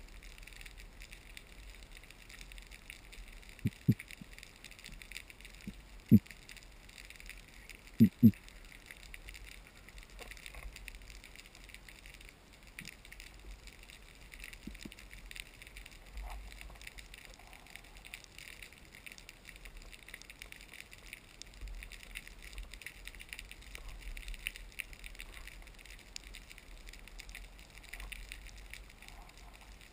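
Underwater reef ambience heard through a diving camera: a steady, faint crackling hiss. Short low thumps stand out: a pair about four seconds in, one about six seconds in and another pair about eight seconds in.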